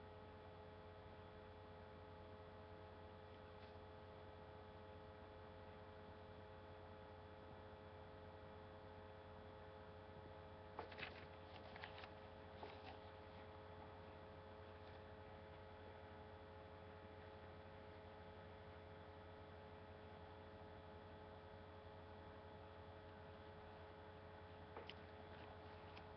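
Near silence: a steady, faint electrical hum with several constant tones, broken by a few brief faint clicks a little before halfway and near the end.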